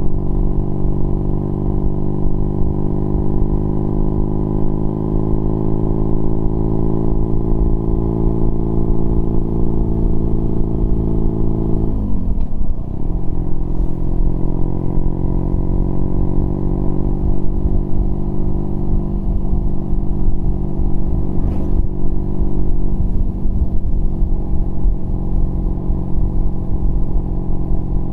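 BMW R nineT Pure's boxer twin through a Competition Werkes exhaust with a 1.5-inch dB killer, pulling in gear with a slowly rising pitch. About twelve seconds in the pitch drops sharply at an upshift, then the engine pulls on and settles to a steady cruise.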